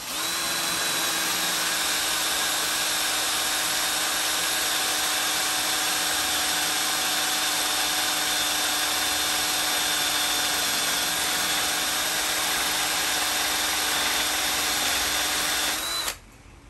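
Cordless drill running at a steady speed for about sixteen seconds, boring a hole with a number 15 bit into a steering column shaft, then stopping abruptly near the end.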